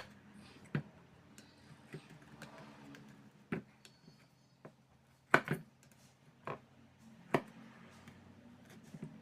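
Scattered sharp clicks and taps, about six of them with a close pair in the middle, from handling the parts of a 50 W LED flood light (housing, PCB) while fitting them.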